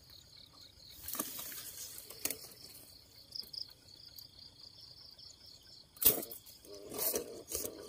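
Crickets chirping in a fast, even pulsing trill, with rustling of grass and a few light knocks; the loudest is a sharp knock about six seconds in, followed by more rustling.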